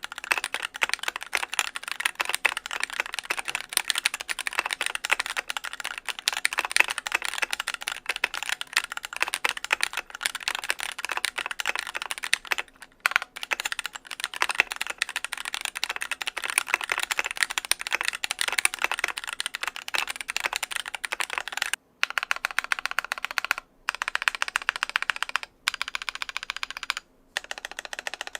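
Fast, continuous typing on a custom mechanical keyboard fitted with Glorious Fox linear switches: a dense stream of keystroke clacks, broken by a few short pauses in the last third.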